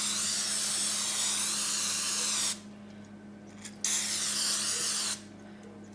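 Aerosol cooking-oil spray hissing out of the can onto a metal cake pan in two long sprays. The first runs until about two and a half seconds in. After a pause comes a brief puff, then a second spray of just over a second.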